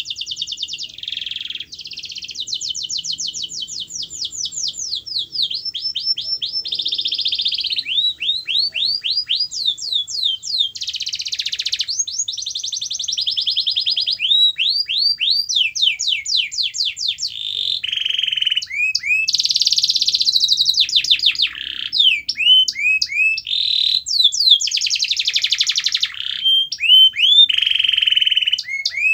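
Domestic canary singing a long, unbroken song: high-pitched phrases of rapidly repeated notes and trills, one after another, some made of quick falling sweeps.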